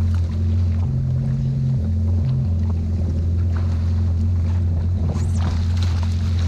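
Jet ski engine idling with a steady low hum, with water sloshing around the hull and a splash near the end as a fish is netted.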